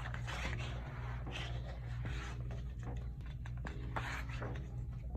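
Paper and card rustling and scraping as a K-pop album's photobook pages and photo cards are handled, in short strokes over a steady low hum.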